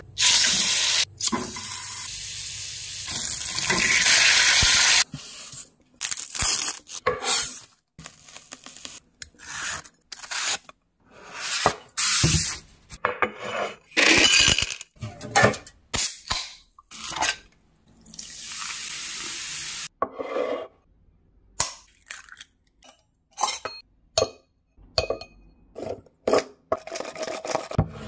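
Kitchen food-prep handling: dishes, glassware and utensils knocked, set down and clinking in many short sounds, with a long rushing noise over the first five seconds and a shorter one a little before the twenty-second mark.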